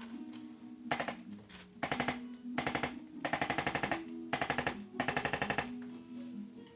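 A sharp click, then five short runs of rapid mechanical tapping at more than ten taps a second, over soft guitar background music.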